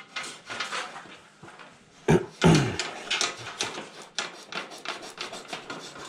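Network cables being handled and pulled through behind a rack-mounted patch panel: a run of quick rubbing, scraping and light clicking sounds, with the loudest knocks about two seconds in.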